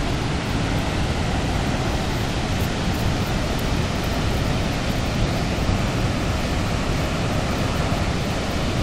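Steady, even rushing roar of Niagara's Horseshoe Falls: a continuous wash of falling water with no breaks or changes.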